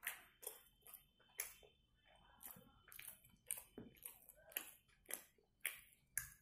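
A person chewing a cheese chicken burger with the mouth open, making wet smacking clicks about twice a second, about a dozen in all.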